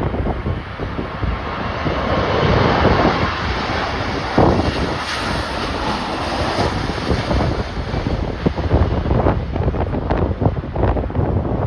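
Strong gusting wind buffeting the microphone: a continuous rumbling roar broken by rapid gust blasts.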